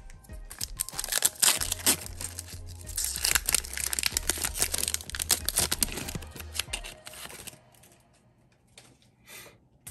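Foil wrapper of a Panini Chronicles basketball card pack being torn open and crinkled by hand, a dense crackle for several seconds. It drops off about three-quarters through, with one short rustle near the end.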